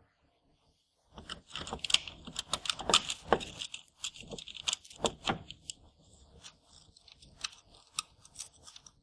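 Metal band clamps on an engine fuel filter being loosened and the filter element handled in gloved hands: a run of small metallic clicks and rattles starting about a second in, busiest over the next four seconds, then sparser.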